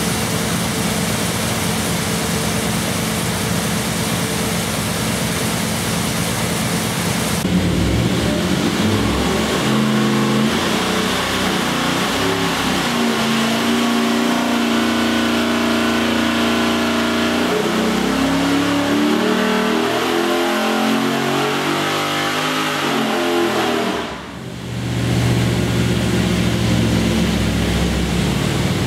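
GM LT1 V8 running under load on an engine dyno through open long-tube headers. Its pitch climbs over several seconds in a power pull, then it drops off sharply about 24 seconds in as the throttle closes, and it settles to a lower, steady speed.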